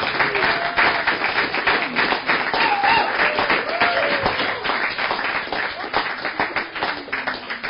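Audience applauding, with a few voices calling out over the clapping; the applause thins near the end.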